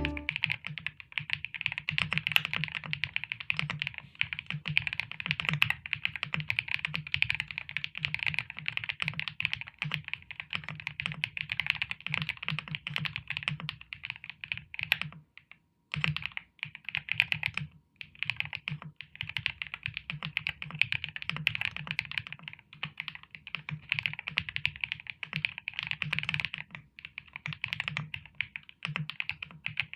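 Continuous fast typing on a Weikav WK75 gasket-mounted 75% mechanical keyboard with a PC plate and Moon White switches: a dense stream of keystrokes, each with a crisp click over a soft low thock. The typing pauses briefly about halfway through.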